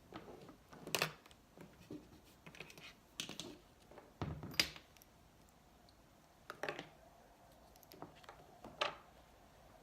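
Makeup items and cosmetic containers being handled: irregular light taps and clicks, with sharper clicks about a second in, a dull thump and click around the middle, and another click near the end.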